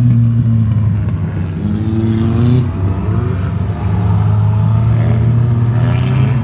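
Front-wheel-drive ice race cars' engines running and revving, over a steady low drone. The pitch rises several times as cars accelerate.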